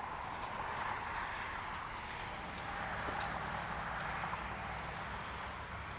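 Steady highway traffic noise, an even wash of tyre and engine sound with no single vehicle standing out.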